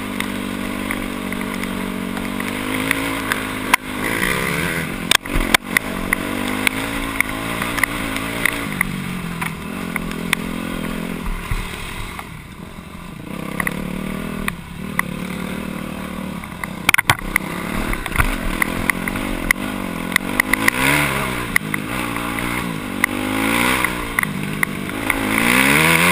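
Dirt bike engine heard up close from the bike, revving up and down as the rider works the throttle. It eases off for a couple of seconds about halfway through, picks up again and is loudest near the end, with several sharp knocks along the way.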